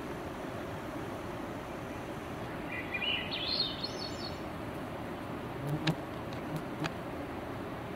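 A bird sings a short phrase of quick notes stepping upward in pitch about three seconds in, over steady background noise. A few sharp clicks follow around six and seven seconds in.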